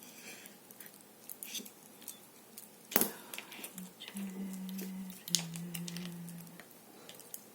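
Small clicks and taps of beads and jewellery tools being handled in bracelet-making, with one sharper, louder click about three seconds in.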